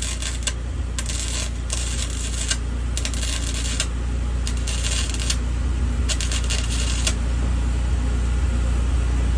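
Electric arc welding in short pulses on thin sheet metal: about seven brief bursts of crackling, each under a second, with a longer pause near the end. The pulsing keeps the thin metal from burning through. A steady low hum runs underneath.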